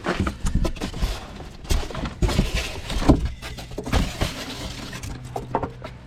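Cardboard box and packaging being rummaged through by hand: irregular rustling, scraping and bumping.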